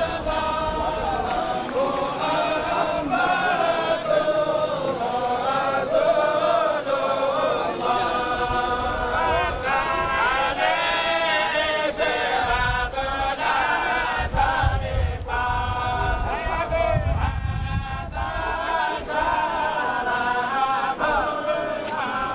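A large crowd of men chanting together in unison as they walk in procession, a sung religious chant of many voices. A low rumble comes up midway through.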